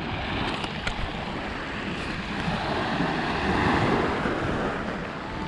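Sea waves washing onto the shore, swelling louder about three seconds in, with wind rumbling on the microphone.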